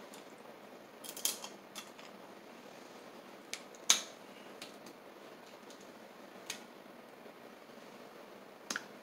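Snow crab being eaten by hand: a scatter of short, sharp clicks and snaps as the shell is cracked and the meat pulled out and bitten, the loudest about four seconds in.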